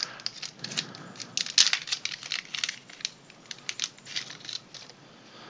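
A small shiny plastic bag being opened and handled, crinkling in quick irregular crackles, with one sharper crackle about a second and a half in.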